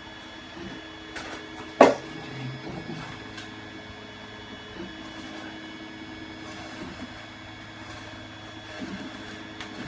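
Cutter knife slicing through a Styrodur (extruded polystyrene foam) board, a few faint scraping creaks, with one sharp knock about two seconds in, over a steady electrical hum.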